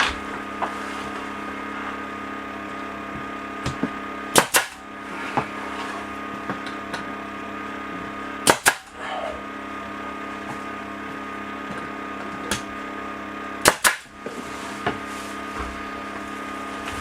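A pneumatic stapler driving staples into thin lauan ceiling panels: three sharp double cracks, about four seconds apart. A small air compressor hums steadily throughout.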